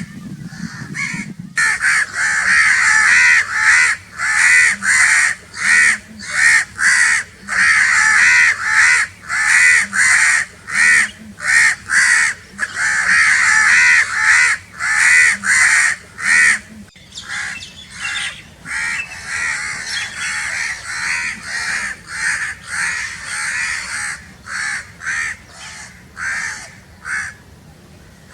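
Crows cawing over and over in quick runs of short harsh calls, loud for most of the stretch, with fainter, more spaced caws in the last third.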